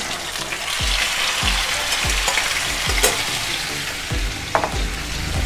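Marinated chicken pieces sizzling in hot oil in a frying pan, the sizzle starting as the chicken goes in, with a couple of sharp clicks.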